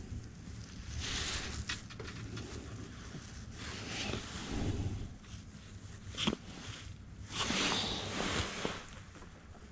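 Jacket fabric rustling and brushing close to a chest-mounted microphone as the arms and hands move, in a few short bouts, with one sharp click a little after six seconds.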